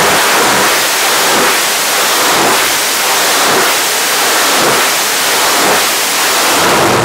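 A loud, steady rushing hiss with no engine note in it, swelling gently about once a second.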